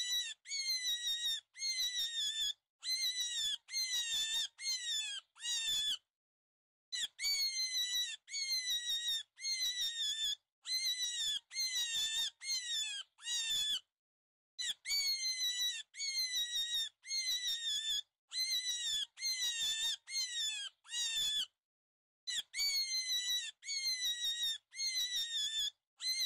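High squeaky animal calls, each a short call that falls slightly in pitch, repeated about three times a second in runs of a few seconds with brief silent breaks between them.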